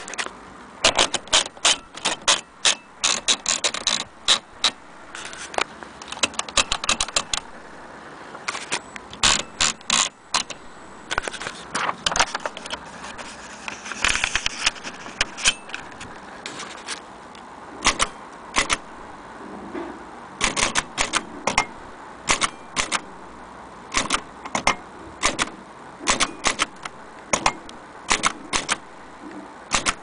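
Vintage Bar-Let three-bank portable typewriter being typed on: irregular runs of sharp clacks as the typebars strike the paper on the platen, with short pauses between runs.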